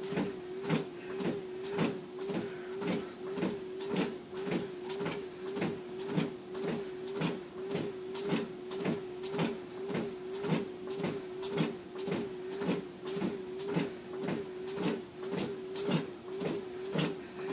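Treadmill running at walking speed on an incline: a steady motor whine, with footsteps striking the belt about twice a second. The whine wavers with each step as the foot loads the belt.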